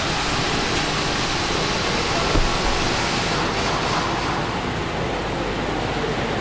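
A steady hiss of noise that does not change, with one short knock about two and a half seconds in.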